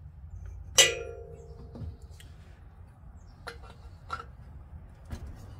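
A metal engine part strikes metal about a second in with one loud, ringing clang that dies away over about a second. A few lighter knocks and clicks follow as parts are handled.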